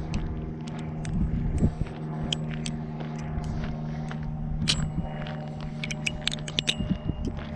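Balisong (butterfly knife) being flipped: its metal handles clack and click sharply and irregularly, several times a second. Under the clicks runs a steady low mechanical hum.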